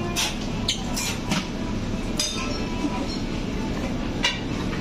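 Busy buffet restaurant din: a steady low rumble of background voices and activity, with several sharp clinks of dishes and serving utensils.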